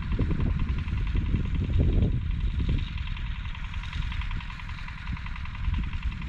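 Motor Sich walk-behind tractor running steadily under load with its rotary tiller cutting soil, with uneven low thumps, heaviest in the first few seconds.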